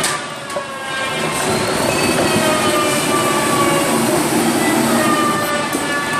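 Rotary veneer peeling lathe running: a machine whine of several stacked tones that slowly rise and fall over a steady, dense rushing noise, dipping briefly in level in the first second.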